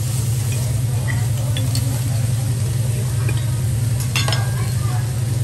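Food sizzling on a teppanyaki griddle over a steady low hum, with a few short clinks of metal utensils, a small cluster of them about four seconds in.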